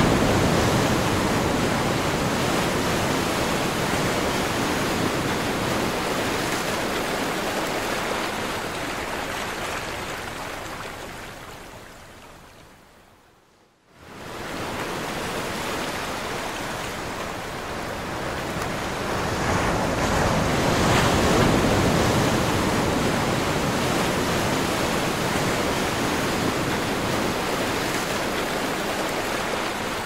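Sea waves washing onto a beach, a steady rushing surf that rises and falls in slow swells. It fades away over a few seconds to near silence about fourteen seconds in, then comes straight back, swelling to its loudest again around twenty seconds in.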